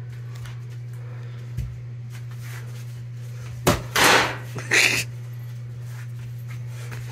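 Gloved punches and scuffling of two people boxing, with a loud cluster of knocks and rustles about four seconds in, over a steady low hum.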